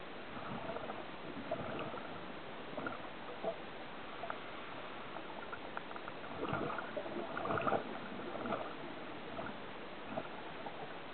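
Scuba diver's exhaled bubbles crackling and gurgling out of the regulator in two breaths, one starting about half a second in and a louder one about six seconds in, over a steady underwater hiss.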